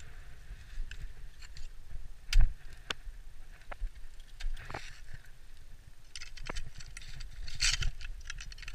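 Mountaineering gear being handled on a climb: scattered metallic clinks and knocks of climbing hardware and an ice axe, with rustling of clothing, over wind rumble on the camera microphone. The sharpest knock comes about two and a half seconds in.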